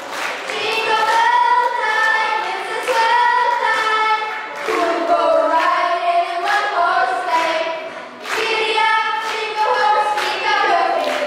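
A group of girls singing a song together through microphones and a PA, with sharp hand claps falling at a regular beat.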